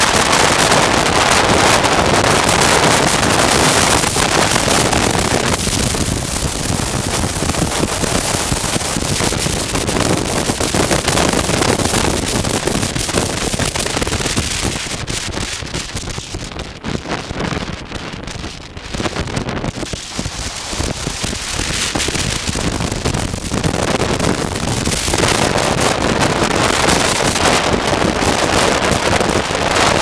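Wind rushing over a helmet-mounted camera's microphone on a motorcycle riding at road speed, a steady loud noise with the engine buried beneath it. It eases off for a few seconds around the middle, then builds again.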